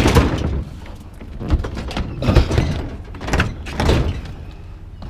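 A dishwasher being shoved and slid across scrap appliances in a truck bed: a string of knocks, thuds and scrapes, loudest at the start and four more times over the next few seconds.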